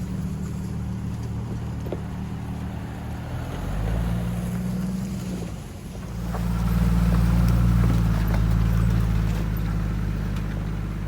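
Jeep Wrangler TJ's engine running under load while driving, its pitch rising and falling with the throttle. It gets louder about four seconds in and again from about six seconds.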